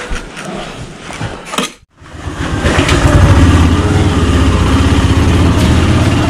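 Small motorcycle engine running at a steady idle, coming in loud about two seconds in after a brief dropout. Before that there is quieter clatter.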